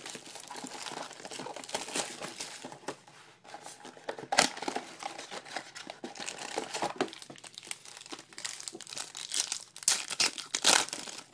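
Trading card pack wrappers crinkling and tearing as they are opened by hand: a dense run of crackles, with sharper snaps about four seconds in and twice near the end.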